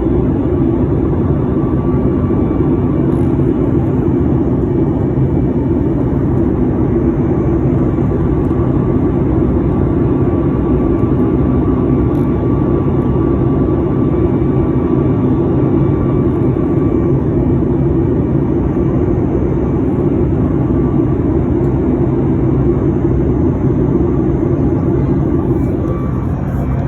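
Steady low drone of a jet airliner heard from inside the cabin, engines and airflow together, with a faint steady whine above it. It eases slightly near the end.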